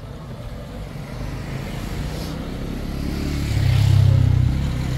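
A motor vehicle's engine passing close by, growing louder to a peak about four seconds in and then easing off.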